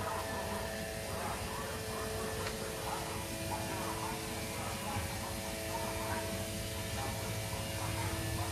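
Small 80-watt solar water pump running with a steady electric buzz and hum, with faint voices behind it.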